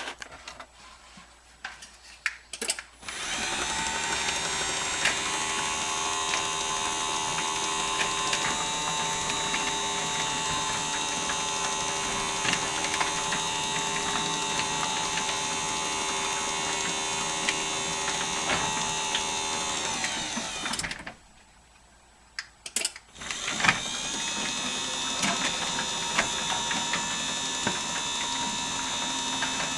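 Genie Silentmax 1200 garage door opener, converted to mount on the side of the door, driving a garage door through its travel: a steady, smooth mechanical whir that starts after a few clicks, stops for about two seconds, then starts again after a click to run the door back. The door's own rattle along its tracks is louder than the opener itself.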